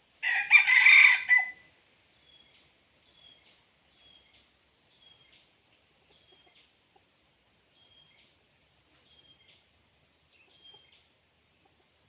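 A rooster crows once, loudly, for about a second and a half. Faint, short, high chirps then repeat about once a second.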